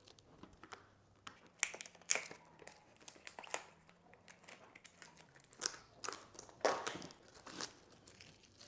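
Red adhesive sealing tape being peeled and torn off a plastic takeaway food container, with the plastic lid crinkling; several separate rips and crackles.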